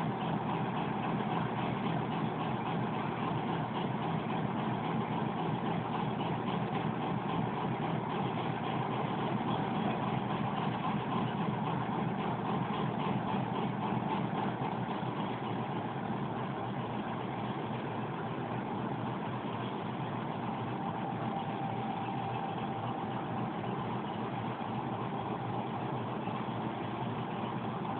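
Diesel locomotive engine idling steadily, easing off slightly in level about halfway through.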